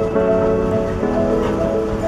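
Background music with sustained notes that shift every half second or so, over a steady hiss.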